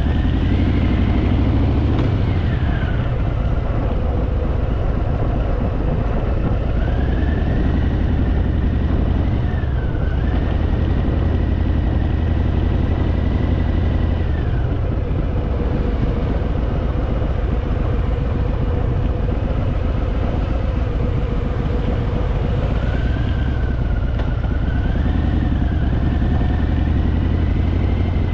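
Harley-Davidson Fat Boy V-twin engine running while riding, its pitch rising and falling several times with throttle and gear changes, then holding steady in between.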